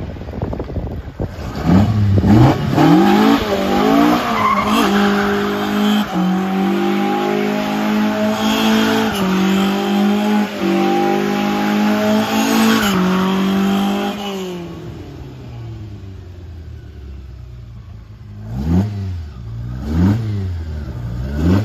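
Red Toyota Corolla's hemi-head four-cylinder revving up and held at high revs, rear tyres spinning and squealing in a smoking burnout for about ten seconds. The engine then drops back to a low run, and the throttle is blipped twice near the end.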